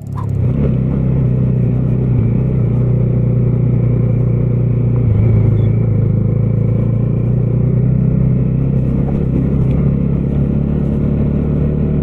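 Bajaj Dominar 250's single-cylinder engine running steadily at a near-constant pitch.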